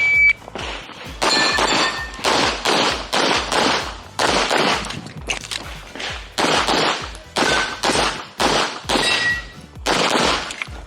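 An electronic shot-timer start beep, then a fast string of pistol shots, mostly in quick pairs with short pauses between strings. A few of the hits ring briefly off steel targets.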